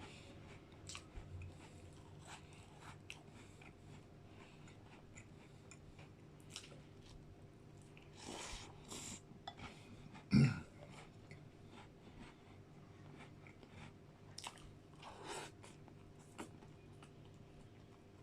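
Close-miked chewing and crunching of McFlurry ice cream mixed with digestive biscuits, with many small wet mouth clicks. About ten seconds in there is one short, loud voiced sound.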